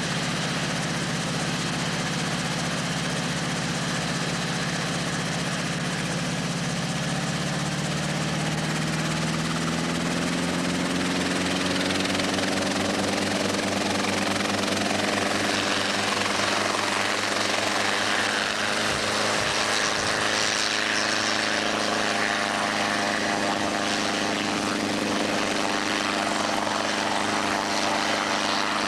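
Small light helicopter running on the ground. Its engine note holds steady, then rises smoothly about a third of the way in as it runs up, and settles at a higher, steady pitch with the rotor turning.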